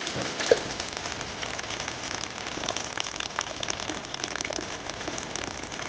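A steady, crackling patter of many small ticks.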